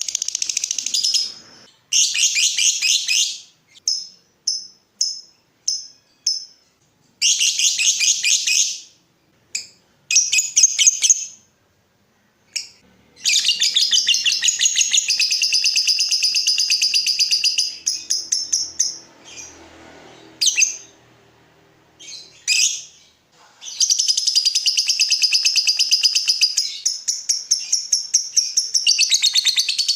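Lovebird chattering in bouts of rapid, high-pitched repeated notes: short bursts at first, then long unbroken trilling runs about halfway through and again near the end.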